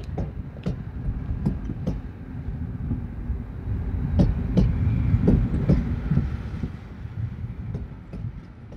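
A low rumble that swells to a peak midway and then fades, with scattered knocks and clicks through it. It is heard in a theatre during a wordless stage transition.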